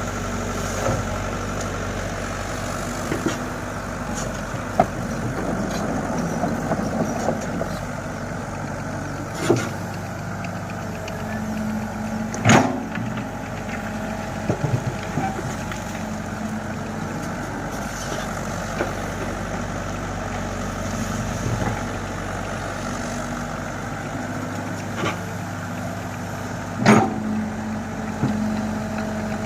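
Komatsu hydraulic excavator's diesel engine running steadily, with a few sharp knocks of metal work along the way, the loudest about twelve seconds in and again near the end.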